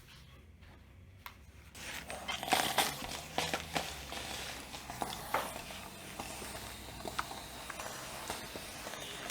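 Indoor handling noises: a series of light clicks and knocks over a rustling hiss, getting louder about two seconds in.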